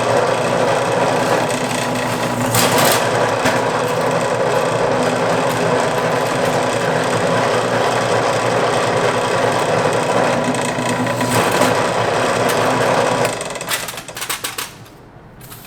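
A power tool running steadily at one speed, then stopping about 13 seconds in, followed by a few light clicks and knocks.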